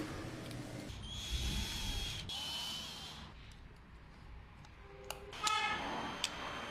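3D printer's stepper motors running in short moves: a whirring stretch with high whines that step to a new pitch, then quieter running and a brief pitched buzz near the end.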